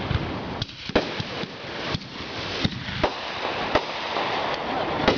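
Fireworks going off: a continuous hissing crackle of burning stars and comets, cut by sharp bangs at irregular intervals of about half a second to a second.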